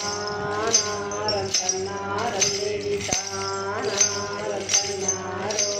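Voices singing a chant over stick-beaten hand drums struck in a steady beat about every 0.8 seconds. Each beat comes with a bright jingle of metal bells.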